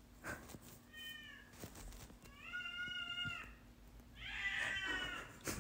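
A domestic cat meowing behind a closed bedroom door, three drawn-out meows, each louder than the last, as it demands to be let into the room. A sharp click sounds just before the end.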